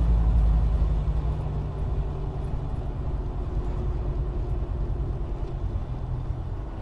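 Steady low road and engine rumble of a car driving at highway speed, recorded from inside the car by a dashcam.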